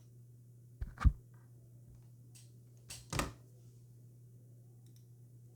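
Two separate dull thuds about two seconds apart, the first one sharper and louder, over a steady low electrical hum.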